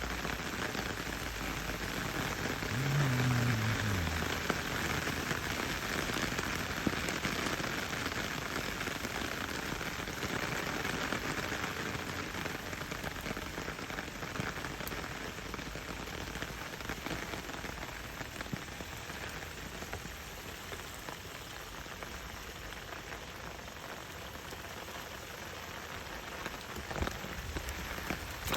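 Steady splashing rush of water, the sound of a flooded rice paddy being drained or of rain falling on it. About three seconds in, a brief low tone falls in pitch over the water noise.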